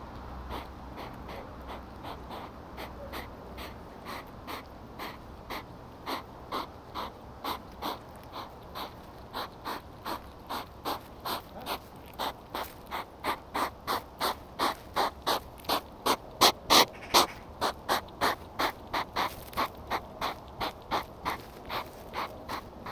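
European hedgehog snorting in a steady rhythm of short, sharp huffs, about two a second, growing louder toward the middle.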